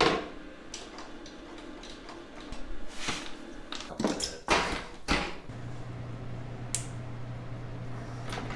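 Handling knocks and clunks as an inverter is set down on a wooden cart and heavy battery cables are moved about, a handful of separate knocks over the first five seconds. A steady low hum starts a little after five seconds in.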